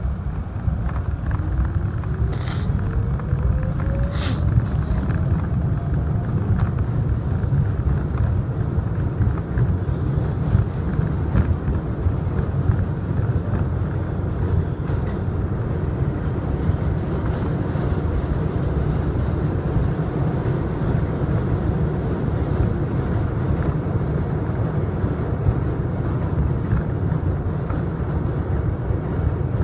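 R68A subway car running on elevated track: a steady low rumble of wheels and running gear, with a whine rising in pitch over the first several seconds as the train picks up speed. Two sharp clicks about two and four seconds in.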